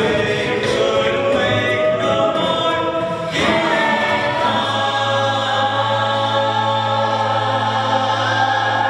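Mixed-voice a cappella choir singing in close harmony. About halfway through, the voices settle into one long held chord over a steady low bass note: the song's closing chord.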